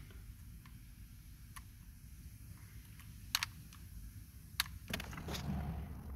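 Small sharp plastic clicks from a pick tool prying at the locking clips of a car steering-column clock spring as a clip is undone: a couple of faint ticks, then sharper clicks in the second half, with handling rustle near the end.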